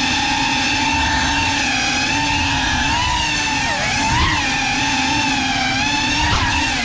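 A GEPRC CineLog35 cinewhoop quadcopter's motors and ducted propellers whine steadily as it flies, heard close up from the GoPro mounted on it. The pitch dips and then rises sharply with the throttle about four seconds in, and blips briefly near the end.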